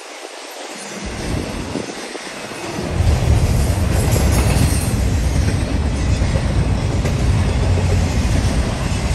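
Intermodal freight train's double-stack well cars rolling past on the rails, wheels and cars making a steady low rumble that grows much louder about three seconds in.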